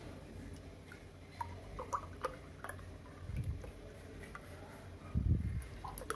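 Thick almond milkshake poured into two glass tumblers: scattered small ticks and clinks, then soft low thumps about three and a half and five seconds in, the second the loudest.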